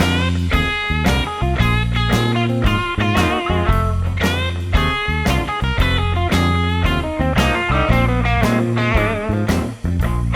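Music: a guitar melody with bending notes over a heavy, steady bass line.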